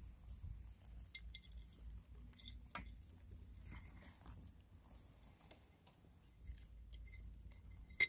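Hens pecking wet grain mash from a stainless steel bowl. Their beaks make scattered soft taps, wet squishy pecks and light clinks on the metal, with a sharper clink about three seconds in and another at the very end.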